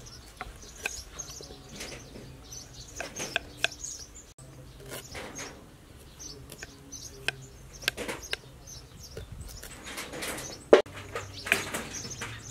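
Kitchen knife cutting and peeling fresh galangal and turmeric root on a wooden chopping board: scattered clicks and scrapes, the loudest about three-quarters of the way through. Birds chirp in the background.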